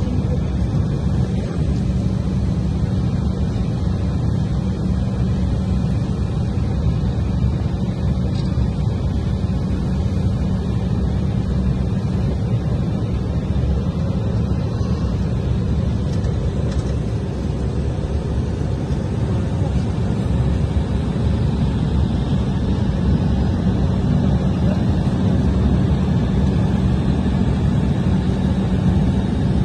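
Steady jet engine and cabin noise heard inside an airliner taxiing, with a constant low hum; it grows a little louder about two-thirds of the way through.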